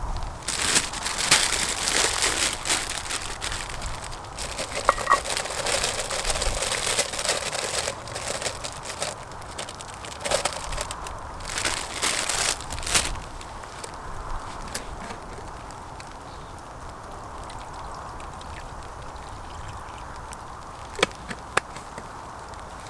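Rustling and crinkling handling noise with sharp crackles for about the first twelve seconds, then a steadier hiss with a few clicks near the end.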